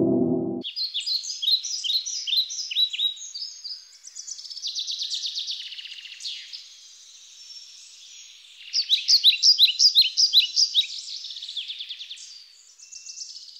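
A low ringing musical tone, like a gong, cuts off about half a second in. Then birds sing in phrases of quick, repeated chirping notes, loudest about two-thirds of the way through.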